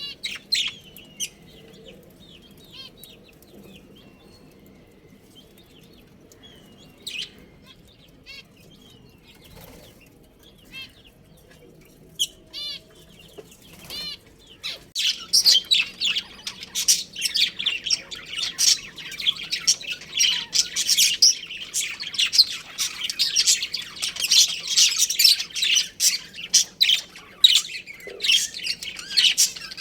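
Budgerigars chirping: scattered single chirps at first, then about halfway through a flock breaks into dense, rapid, high-pitched chattering.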